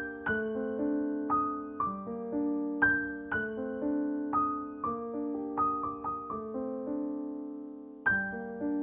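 Background piano music: a slow, gentle melody of single struck notes, each fading away, with a short pause near the end before a new phrase begins.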